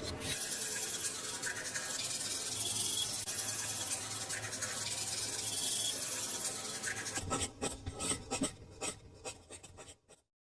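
Steady rasping and rubbing on a miniature brick-and-cement build, scraping a hard gritty surface. After about seven seconds it breaks into separate short scrapes and taps, then stops abruptly.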